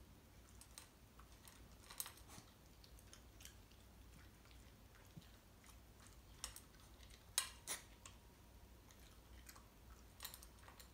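A Shiba Inu eating dry kibble from a stainless steel bowl: scattered crunches and clicks, the loudest about two seconds in and a close pair about two-thirds of the way through.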